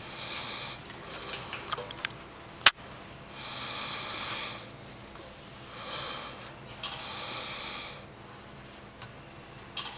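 A hand pad wiped in strokes across a metal equipment panel, a scrubbing sound in about four passes of half a second to a second and a half each. A single sharp click comes a little under three seconds in.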